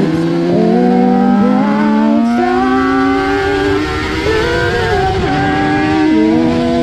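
Racing motorcycle engine at speed, heard from on board: the pitch climbs steadily as it accelerates through the first three seconds, then drops in steps about five and six seconds in as it changes gear. Wind rush runs beneath it.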